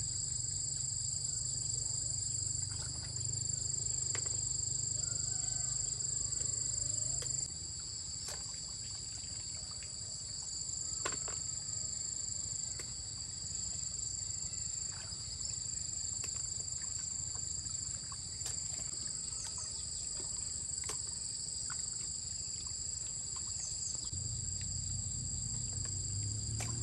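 Steady high-pitched insect chorus, a continuous shrill buzz at two pitches, with a few faint clicks scattered through it.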